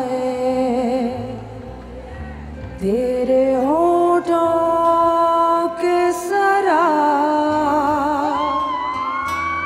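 A woman singing live into a microphone, a slow melody with wavering, ornamented turns and a long held note that she slides up into about three seconds in, over a soft accompaniment of low held bass notes.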